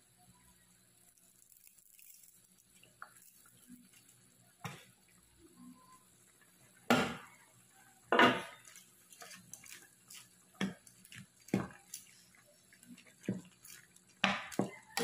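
Scattered clinks and knocks of a spatula and utensils against a wok, with light splashing of broth, as moringa noodles are dropped in and stirred. The two loudest knocks come about seven and eight seconds in.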